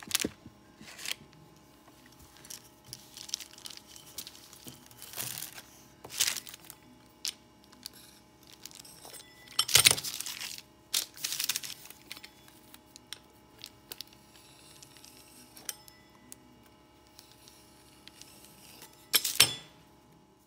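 Handling noises from rolling out and cutting pie dough: a clear plastic sheet crinkling and rustling, and a metal pizza cutter clicking and clattering on the counter. There are scattered light clicks, two louder rustling bursts about ten seconds in and near the end, and a faint steady hum underneath.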